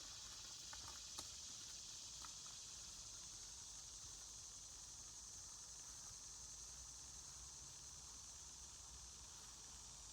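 Near silence: faint outdoor ambience with a steady high hiss, and a few faint ticks in the first couple of seconds.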